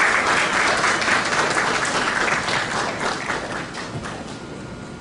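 Audience applauding, loudest at first and dying away over the last couple of seconds.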